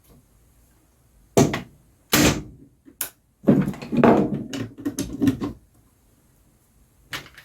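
Handling noise on a workbench: a few separate knocks, then about two seconds of clattering and rattling as objects and loose test wires are moved about.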